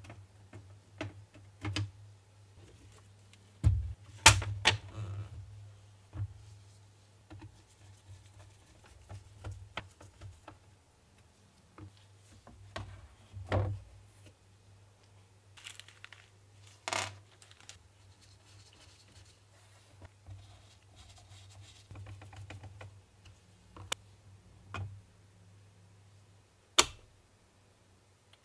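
Irregular clicks, taps and knocks from a wooden-cased wall clock being handled, with a few louder knocks about four seconds in and about halfway through as it is turned over and set down.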